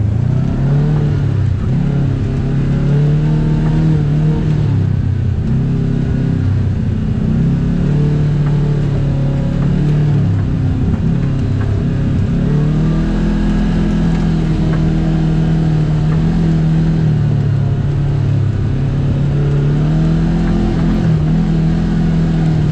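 Side-by-side UTV engine running as it drives a rough trail, its pitch rising and falling over and over with the throttle.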